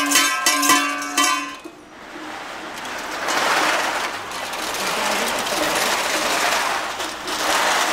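Long chains of tin cans strung together clinking and clanking for the first second or so, then a steady scraping rattle as they are dragged over the asphalt road.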